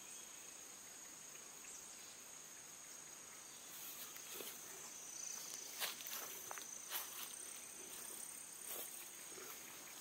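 Insects in the undergrowth keep up a steady high-pitched drone. From about four seconds in, footsteps rustle and crackle through tall grass and brush.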